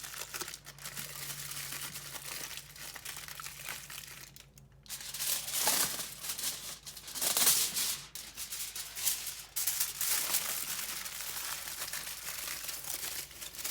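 Aluminium foil crinkling and crumpling in irregular bursts as it is folded tightly around a food packet, with a short pause about four and a half seconds in.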